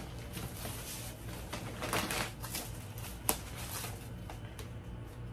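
Thin plastic packaging bag rustling and crinkling as a boot is pulled out of it, with one sharp click about three seconds in.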